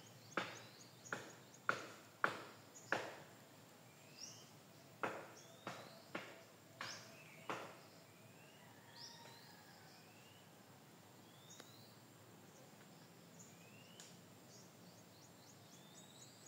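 About a dozen sharp knocks, roughly one every two-thirds of a second, which stop about halfway through. Small birds chirp faintly with short rising calls.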